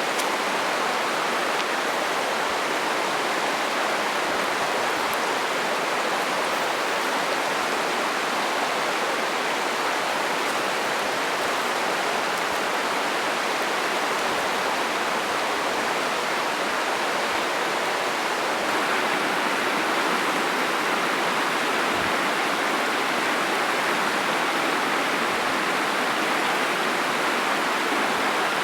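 Fast mountain trout stream rushing steadily over rocks, running high after rain and snowmelt.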